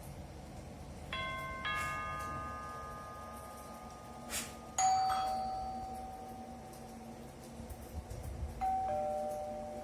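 Doorbell chiming: three two-note ding-dong chimes, each note ringing out slowly, the middle one loudest and preceded by a sharp click.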